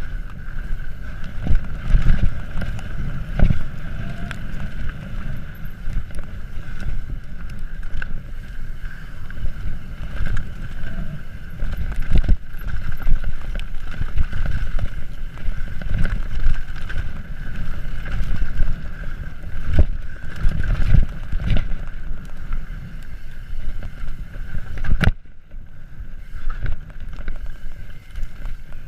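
YT Capra full-suspension mountain bike descending a rocky trail at speed: wind rushing over the camera microphone, with frequent knocks and rattles as the bike hits rocks, under a steady high buzz.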